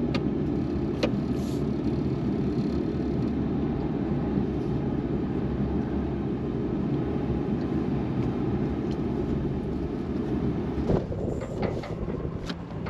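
Pickup truck driving slowly over snow, a steady engine and tyre rumble. About eleven seconds in the rumble eases and a few knocks follow.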